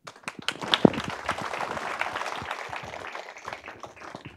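Audience applauding: a dense patter of many hands clapping that starts suddenly and thins out near the end.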